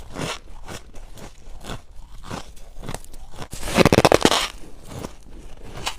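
Freezer frost crunching between the teeth in a series of short bites and chews, squeaky and crisp. A loud burst of rapid crunches comes a little past halfway.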